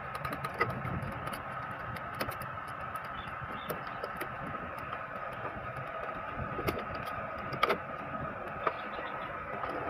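Scattered small plastic clicks and taps as parts inside an Epson L3110 printer are pushed and fitted by hand, trying to snap into place, over a steady background hum.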